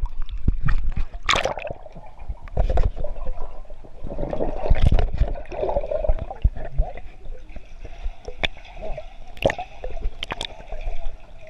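Pool water sloshing and gurgling around a GoPro camera as it goes under the surface and comes back up, with sharp knocks of water and hands against the camera housing. The sound is muffled while the camera is underwater.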